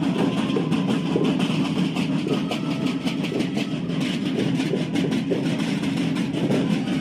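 School marching band's drums beating out a steady, even clatter of strokes over a continuous low rumble.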